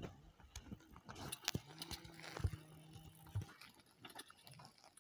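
Faint, long, drawn-out calls of farm livestock, one short and one longer call of about two seconds, with a few sharp clicks between them.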